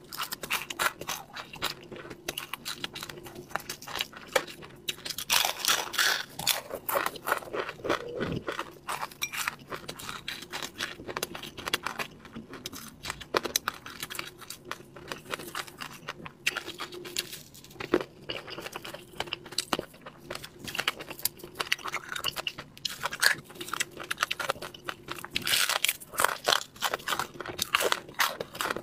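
Person eating crispy fish close to the microphone: crunching bites and chewing through crackly skin and fins, as a dense run of small irregular crackles.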